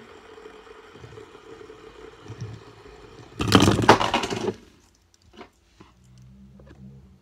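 Stacked metal fidget spinners spinning with a steady whirr from their bearings; about three and a half seconds in the stack topples and clatters loudly onto the table for about a second, followed by a few light clicks.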